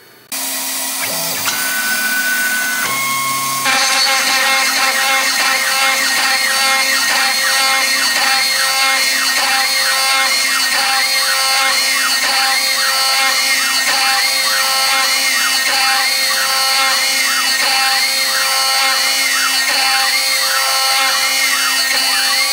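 CNC router spindle at 18,000 rpm driving an end mill through aluminum plate, climb milling a circular hole at 635 mm/min and 0.762 mm depth of cut, over the hiss of an air blast clearing chips. The sound starts suddenly just after the start and grows louder about four seconds in. It then settles into a steady whine that wavers up and down about once a second as the cutter circles the hole.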